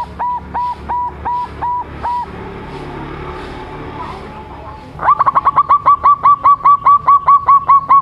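Young zebra dove (perkutut) cooing: a run of short repeated notes that slows and stops about two seconds in, then after a pause a louder, faster run of about eighteen notes from about five seconds in.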